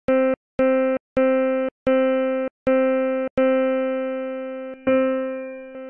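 A synthesized piano-like note, built from stacked sine waves at harmonic frequencies, played about eight times at the same pitch. The first few notes are short and cut off abruptly; the later ones are held longer and fade away.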